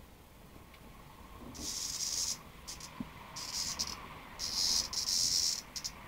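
A cicada giving a harsh, high-pitched distress buzz in several short bursts, the longest near the end, while cats paw at it.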